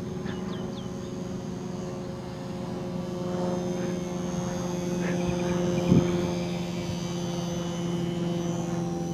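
HobbyZone Super Cub S RC plane's motor and propeller droning steadily in flight, swelling a little midway as it passes. There is a brief thump about six seconds in.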